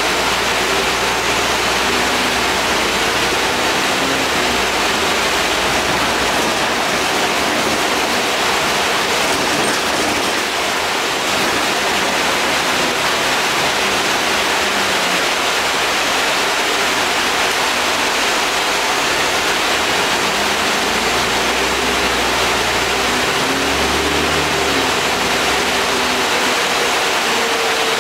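Cabin noise on the lower deck of a moving Alexander Dennis Enviro 400 double-decker bus: a steady, loud hiss of air-conditioning and road noise, with faint engine and drivetrain tones rising and falling underneath.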